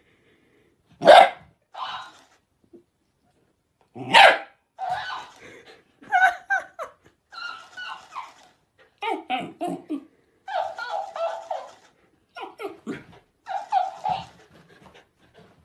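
A dog gives two sharp barks about three seconds apart. After each one, a talking hamster toy repeats it back in a squeaky, sped-up voice, and it keeps up a high-pitched chatter through the rest.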